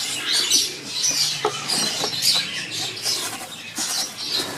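Many caged birds chirping busily, with rapid shrill chirps overlapping throughout and a few faint ticks among them.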